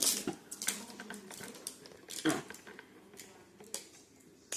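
Close-up eating sounds: wet chewing and mouth smacks with a few sharp clicks, one louder smack about two seconds in.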